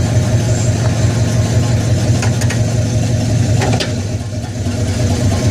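Chevrolet 305 small-block V8 in a box Caprice running loud and steady while the car is demonstrated. A few short sharp pops or clicks are heard between about two and four seconds in, and the engine briefly drops in loudness just after.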